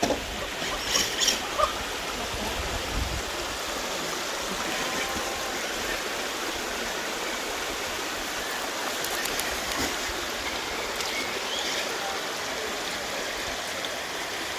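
Shallow creek water running steadily over rocks, with a few short knocks or splashes about a second in.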